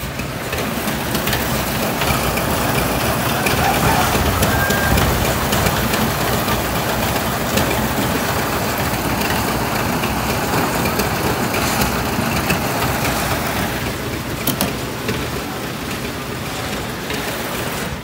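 Construction machinery engine running steadily through a concrete roof-slab pour, with a couple of brief knocks about three quarters of the way through.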